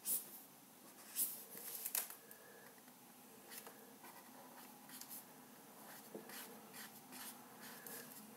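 Felt-tip marker strokes on paper as hair is shaded in: a series of quick, short strokes, the strongest three in the first two seconds, then lighter ones.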